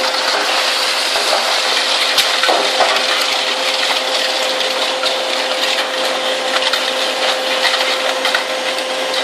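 Zato Blue Devil twin-shaft shear shredder running, its slow rotary shears chewing scrap steel with a continuous metallic crunching and clatter over a steady machine hum.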